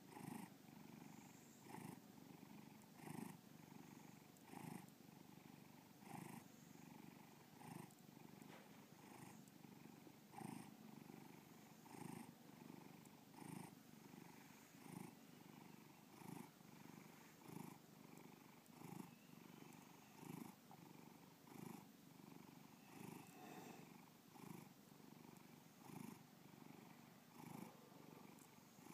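Domestic cat purring steadily and faintly, the purr swelling with each breath about every second and a half.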